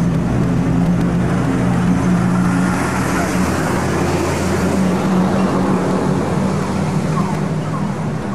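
Street traffic with a vehicle engine running steadily, a low, unbroken hum under a wash of road noise.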